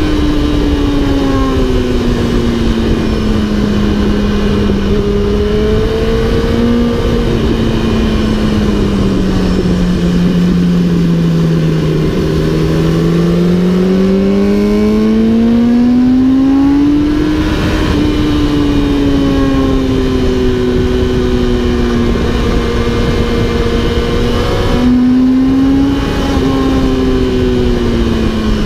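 Onboard sound of a 2008 Yamaha R1's inline-four engine at track speed, over steady wind noise on the microphone. The engine note sags slowly for about ten seconds through a long corner, then climbs again as the throttle opens. It holds steady for a while and jumps up briefly a few seconds before the end.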